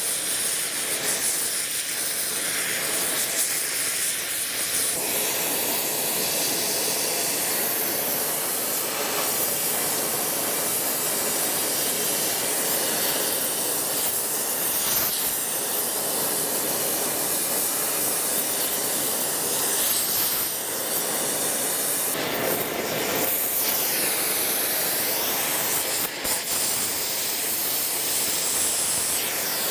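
Oxy-fuel torch flame hissing steadily as it heats a piece of steel in a vise to red heat for bending.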